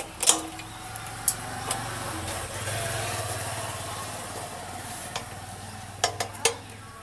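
Metal clicks and a scraping rub as the engine-bed bolt is pushed through the engine and chassis mounting holes of a TVS 50 moped, with a few sharp metal taps about six seconds in. A low steady hum runs underneath.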